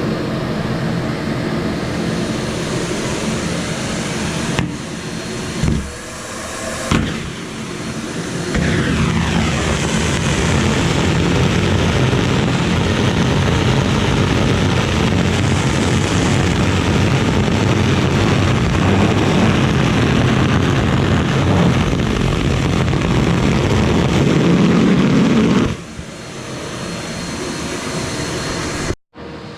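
Shop vac running loud and steady while sucking up clothes, its sound dipping with a couple of knocks around six seconds in and growing louder from about eight seconds. It drops in level a few seconds before the end, then breaks off sharply for an instant.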